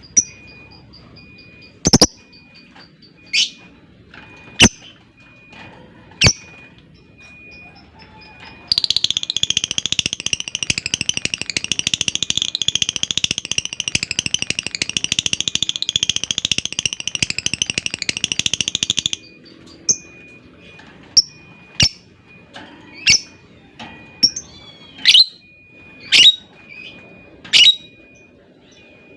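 Lovebird calling: several sharp, separate high chirps, then a fast chattering trill held for about ten seconds (the long 'ngekek'), then more chirps in quick succession.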